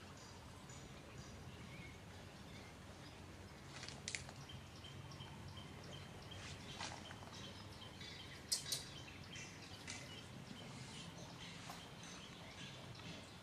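Faint outdoor background with light chirping and two brief, sharp, high sounds, about four and eight and a half seconds in; the second is the loudest.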